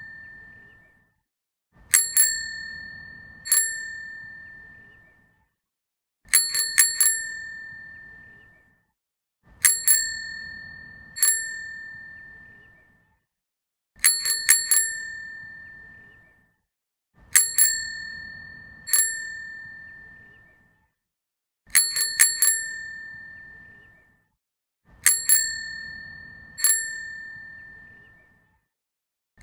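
Bicycle bell rung over and over: a quick run of three or four dings, then a single ding a moment later, the pattern repeating about every three and a half seconds. Each ding rings out at one clear pitch and fades.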